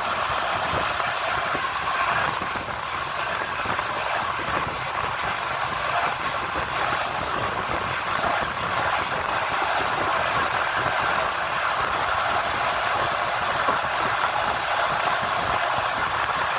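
Train wheels running along the rails, a steady, even noise of wheels on track.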